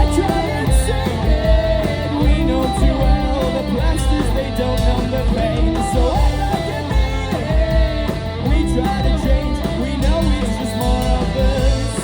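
Rock band playing live: electric guitars over bass and drums, with a steady beat, recorded from the audience.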